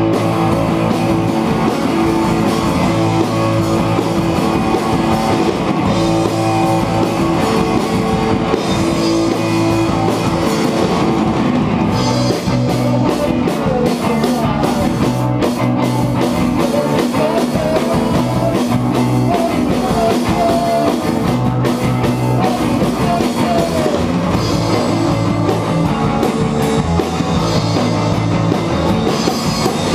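A band playing instrumental rock live on drum kit and electric guitars, loud and steady; the playing changes to a new part about twelve seconds in.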